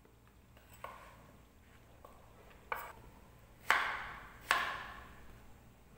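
Kitchen knife cutting eggplant on a wooden cutting board: a few light taps, then two louder knocks a little under a second apart, each trailing off briefly.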